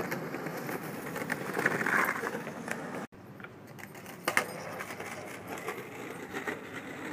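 Skateboard wheels rolling on rough asphalt, with one sharp clack of the board a little past the middle as a trick is popped or landed.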